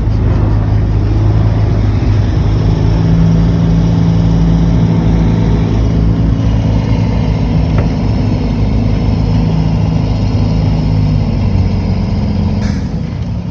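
Heavy diesel engine of an earthmoving machine running steadily; its pitch drops slightly near the end.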